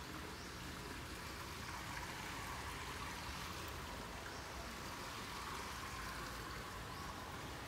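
Garden ambience: a steady, even hiss with faint short rising chirps every second or two.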